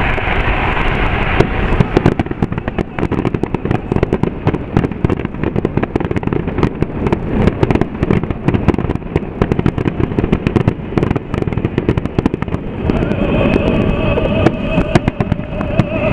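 Fireworks finale barrage: many aerial shells bursting in rapid succession, a dense, continuous run of bangs and crackle with no pauses.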